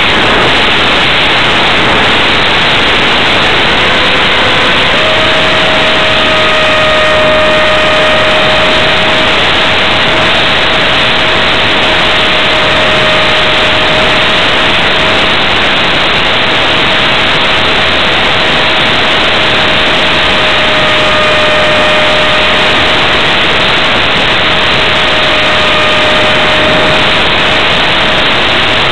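Onboard recording from a ParkZone F-27C Stryker RC flying wing in flight: a loud, steady rush of airflow over the camera's microphone, with the thin whine of its electric pusher motor. The whine steps up in pitch a few times in the first five seconds, then holds steady.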